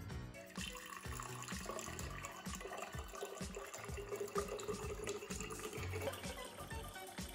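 Water pouring from a glass pitcher into a small aquarium, with the overflow draining from a tube into a glass cylinder, starting about half a second in. Background music with a steady beat plays underneath.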